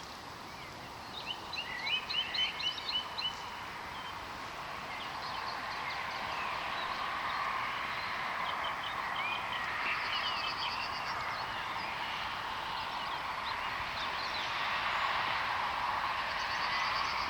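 Songbirds singing over a steady background hiss: a loud run of quick repeated chirps about two seconds in, then scattered calls and a short buzzy trill later, while the hiss grows a little louder.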